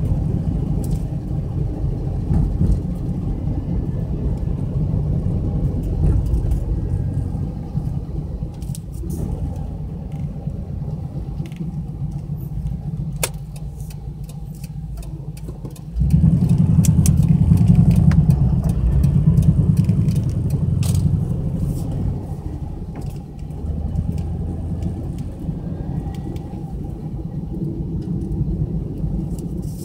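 Car engine and road noise heard from inside the cabin: a steady low rumble that jumps suddenly louder about 16 seconds in and eases back over the following seconds, with scattered small clicks.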